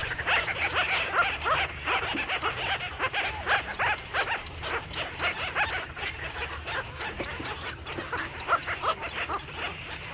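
Many small birds chattering together, a dense, continuous mix of short chirps and squeaks.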